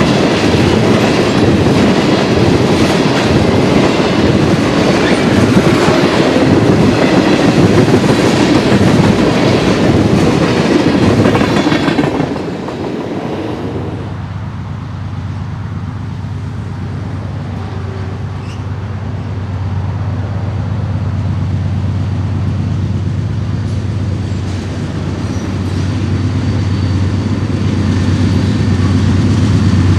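A train of tank cars rolls past close by, with loud wheel clatter on the rail joints. About twelve seconds in the sound cuts to the diesel engines of approaching Norfolk Southern locomotives: a steady low hum that grows louder near the end.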